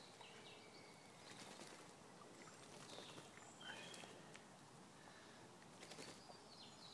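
Faint soft splashing and wing flicks from pigeons bathing in a shallow tray of water, with a few short high chirps.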